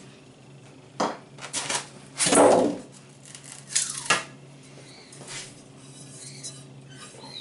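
Polystyrene packaging and a food processor's metal shredding disc being handled: a few short scraping and rubbing noises in the first four seconds, the loudest about two seconds in, some ending in a falling squeak, then quieter handling.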